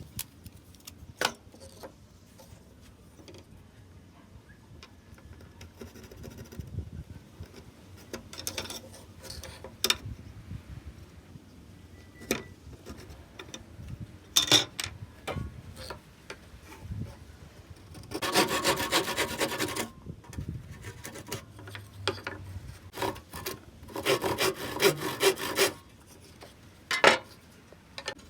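Woodworking on thin wooden slats: scattered sharp wooden knocks and clacks, and two rasping, scraping bursts of about two seconds each, one about two-thirds of the way through and one near the end.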